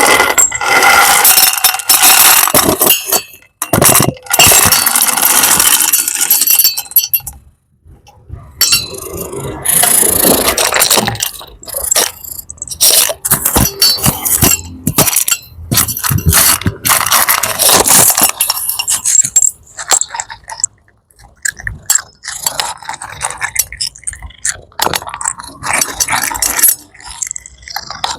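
Cat eating crunchy food: loud, crispy crunching and chewing in irregular bursts, with a couple of brief pauses.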